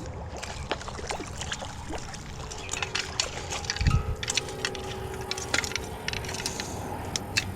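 Splashing and sloshing water as a small pike is brought in and netted, with scattered sharp clicks and rattles of fishing tackle being handled and a dull thump near the middle.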